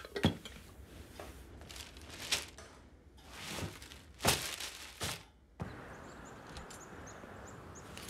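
Animated-cartoon foley: several soft thumps and paper rustles as a bear lowers and folds his newspaper and walks across a wooden floor, then a steady hiss of room ambience from a little past halfway.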